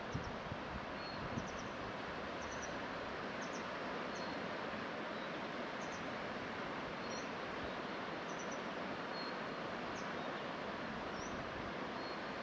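Steady rushing of a flowing river, with small birds giving short high chirps every second or so.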